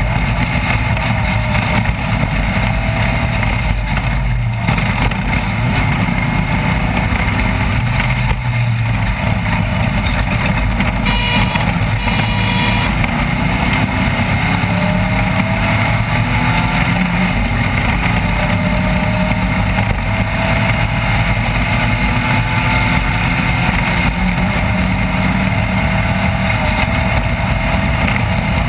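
Off-road race vehicle's engine running under load, its pitch climbing several times with the throttle and gears, over a steady loud rushing noise.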